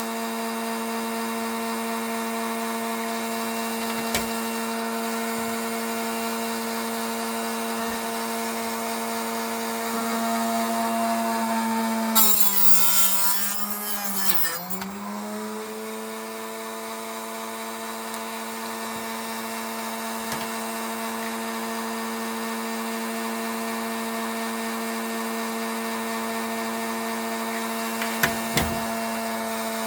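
Harbor Freight mini chop saw running with a steady whine; about twelve seconds in the blade cuts through a plastic shotgun hull in a loud, rasping pass that pulls the motor's pitch down, and the whine climbs back up once the cut is through. A few light knocks come from handling the hull in the jig.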